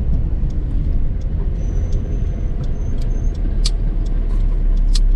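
A car on the move: a steady low rumble of engine and road noise, with scattered sharp ticks and a faint high whine that comes and goes in the middle.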